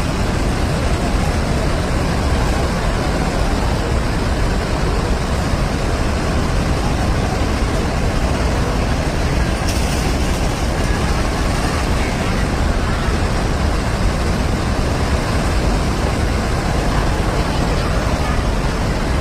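Floodwater rushing: a loud, steady noise that does not let up.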